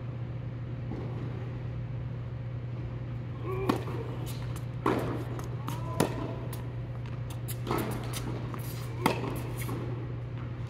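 Tennis ball struck back and forth by racquets during a singles rally: about five sharp pops, a second or so apart, over a steady low hum.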